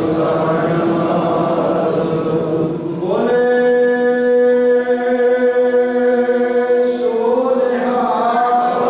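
Sikh congregation of men chanting together in prayer, then from about three seconds in one voice holds a single long, steady note for about four seconds before other voices come back in near the end.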